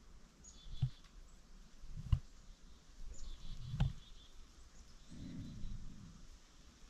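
Quiet forest ambience with faint bird chirps and three soft, low knocks on the dog-harness-mounted GoPro as the dog shifts, the loudest near the middle.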